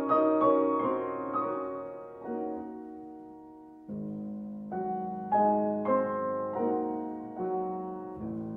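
Solo piano music. A gentle falling run of notes fades out, then a new phrase starts about four seconds in over a held low note.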